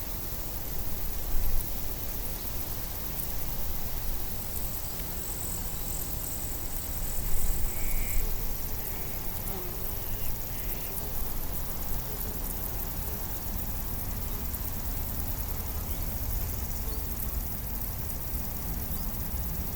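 Outdoor nature ambience: a steady low rumble and hiss, with two brief louder swells and a few faint short high calls near the middle.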